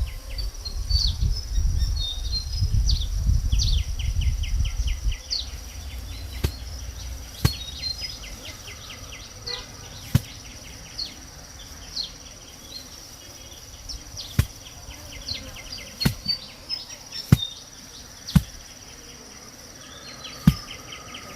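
Insects chirping and buzzing in a steady high drone, with trains of rapid pulsed chirps and a few short bird chirps. A low rumble runs through the first five seconds or so, and sharp knocks come singly every second or two from about six seconds in.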